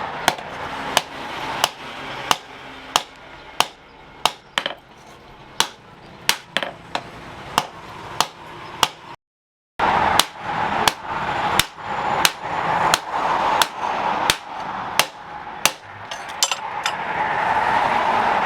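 Forging hammer striking hot steel on an anvil in repeated sharp, ringing blows, roughly one or two a second, over a steady rushing noise. The sound cuts out for about half a second a little past the middle.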